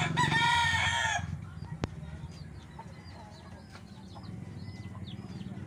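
A rooster crowing once, a call of about a second right at the start that bends down at its end. A single sharp click follows, then faint high chirps over a low steady hum.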